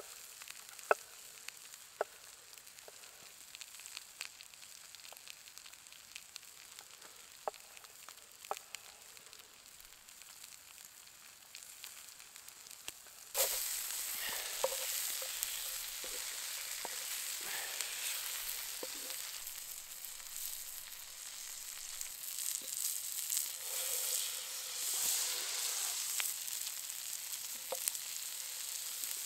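A knife cutting hedgehog mushrooms on a wooden board, with sharp clicks of the blade against the board over faint sizzling. About thirteen seconds in, this gives way abruptly to loud sizzling of sausages and tomato halves frying in a large pan over a campfire.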